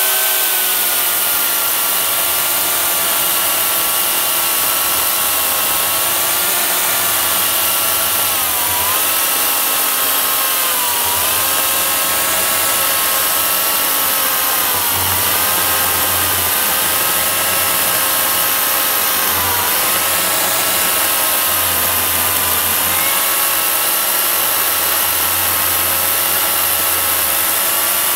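Makita UC4041A 1800 W electric chainsaw running under load as it cuts slowly through a thick tree stump. It makes a steady motor whine whose pitch dips briefly several times as the chain bites into the wood.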